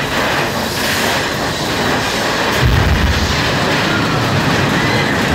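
Mine-train roller coaster cars clattering along the track through a tunnel. About two and a half seconds in, a deep rumble from the ride's staged dynamite explosion sets in and carries on.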